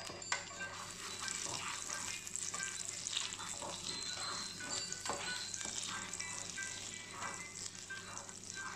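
Butter sizzling and foaming in a hot non-stick frying pan while a plastic spatula spreads it around, with faint background music underneath.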